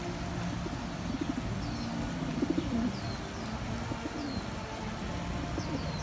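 Feral rock pigeons cooing, the low coos strongest about two and a half seconds in. Short, high, falling chirps recur every second or so behind them.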